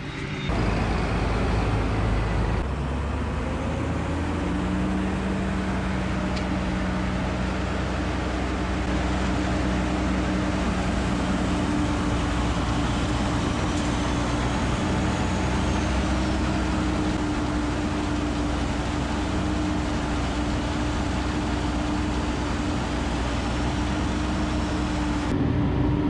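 Tractor-driven forage harvester running, chopping alfalfa and blowing it through the spout into a forage wagon, with the tractor engine droning steadily.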